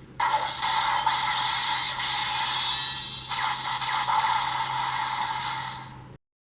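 Edited Kamen Rider transformation-belt sound effect: a dense electronic rushing sound over a steady low hum, fading out about five seconds in and then cutting to silence.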